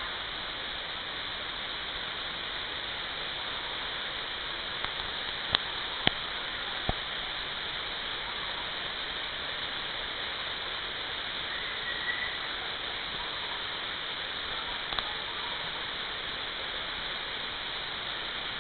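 Small waterfall rushing steadily, a continuous hiss of falling water, with a few sharp clicks about a third of the way in.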